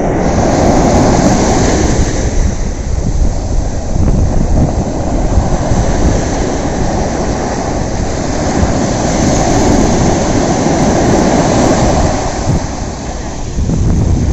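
Wind rushing over the microphone with sea surf washing in, a loud, steady, gusting noise without any distinct strokes or tones.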